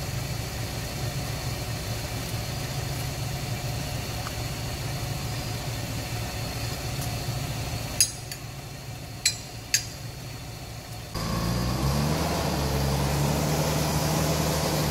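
Four-wheel-drive vehicle's engine idling steadily. A few sharp clicks follow, then a louder engine running harder, its pitch rising briefly before holding steady.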